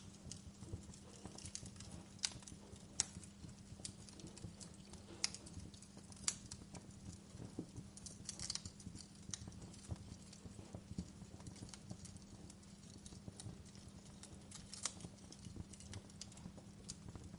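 Wood fire burning in a fireplace, crackling with irregular sharp pops, the loudest about 2, 3, 5, 6 and 15 seconds in, over a low steady hum.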